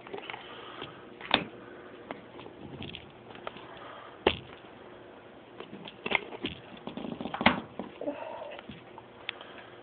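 Scattered knocks, clicks and scraping of parts being handled in a top-load washing machine's tub, with the sharpest knocks about four seconds in and again at about seven and a half seconds.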